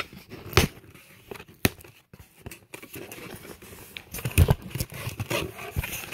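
A cardboard shipping box being handled and opened by hand: scattered rustles, scrapes and sharp knocks of cardboard, the loudest cluster about four and a half seconds in.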